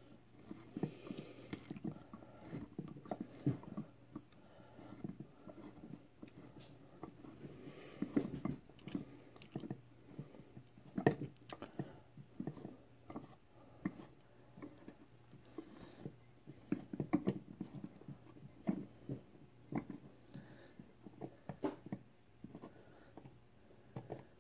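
An 8-32 hand tap in a tap handle cutting threads into the soft metal of a shroud, heard as a faint, irregular run of small clicks, creaks and crunches as the tap is turned.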